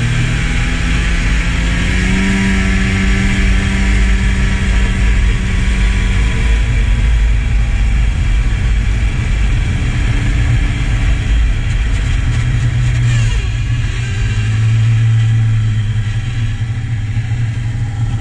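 Two-stroke snowmobile engine running under way on a trail, its pitch rising and falling a few times with the throttle, over a steady rushing noise.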